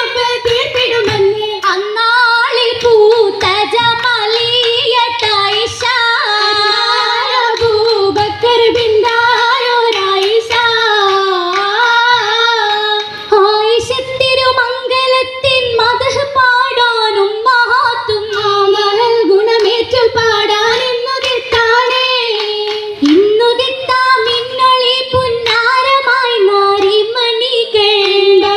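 Female voices singing a Mappila song for an Oppana dance, a wavering melody in a high register, with the dancers' sharp hand-claps keeping the rhythm.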